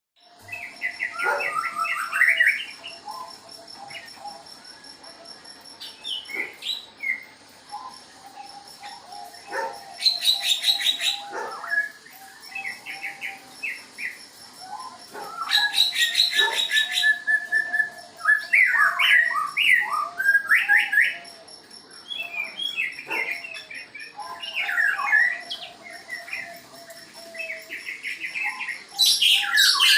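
Several caged birds chirping and singing in bouts, with quick warbled phrases and a few fast, rattling trills, over a lower wavering note.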